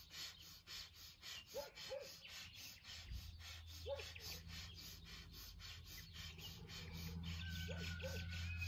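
Breath of fire: rapid, rhythmic forced exhalations through the nose, about three a second, during lifts up and down in reverse platform pose. Short bird calls chirp a few times, and a low steady hum comes in about three seconds in.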